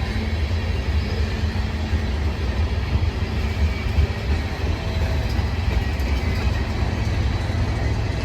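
CN freight train's cars rolling past at track side: a steady rumble of steel wheels on the rails, with faint high wheel squeal above it.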